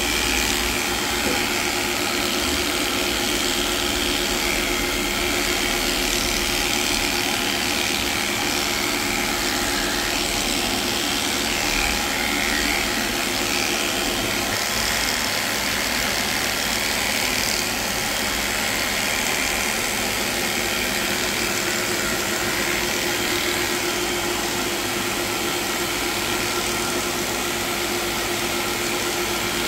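Cordless electric dog clipper running with a steady buzz as it shaves off a matted coat.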